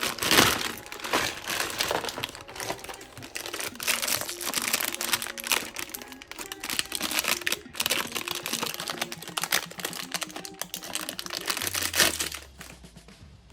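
Packaging wrap crinkling and rustling as it is handled, a dense run of crackles that dies away near the end.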